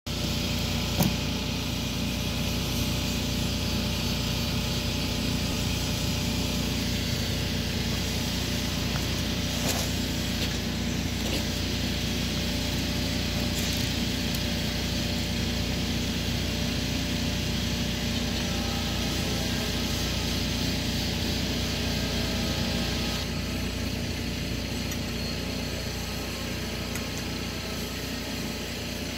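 An engine running steadily at idle: a constant low drone with hiss. There is a single sharp knock about a second in.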